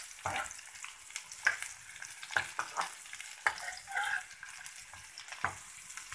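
Sliced onions and cumin seeds sizzling in hot cooking oil in a metal pan, stirred with a spoon that scrapes the pan in short, irregular strokes. The onions are being sautéed to a light pink.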